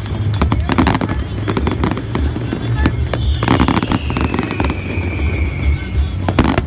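Aerial fireworks bursting and crackling, with many sharp reports. About three seconds in, one long falling whistle runs for nearly three seconds.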